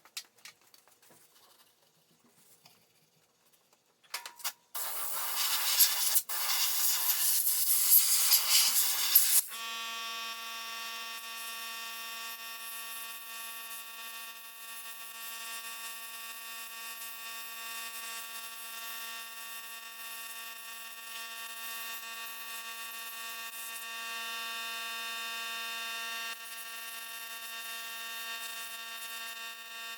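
A few faint clicks, then a loud, even hiss for about five seconds that cuts off suddenly. After it comes a steady machine hum with a high whine.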